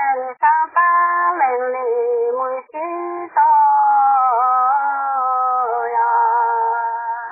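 A single voice singing a slow song without accompaniment, in long held, wavering notes with brief breaks between phrases. The singing stops near the end.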